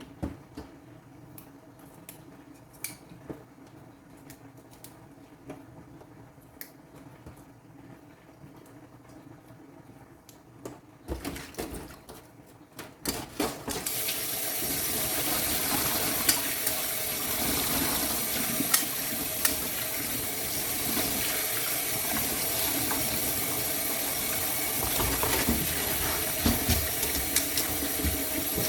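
Faint clicks of kitchen handling, then a few knocks and a water tap turned on about halfway through, running steadily into a sink.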